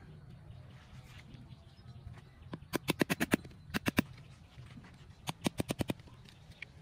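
A heavy knife blade rapping a whole mature coconut shell, three quick runs of sharp knocks, several a second, from about two and a half seconds in, as the shell is tapped around to crack it open.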